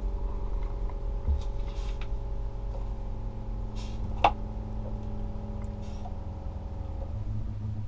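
Boat's electric freshwater pressure pump running steadily with a hum as it builds pressure in the water lines, with one sharp click about four seconds in.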